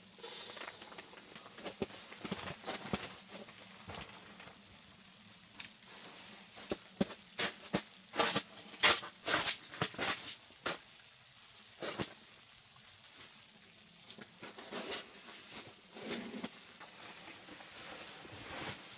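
Rustling of a down sleeping bag and nylon bedding as a person shifts and settles on a camp cot, in irregular bursts, loudest near the middle, with another short burst near the end.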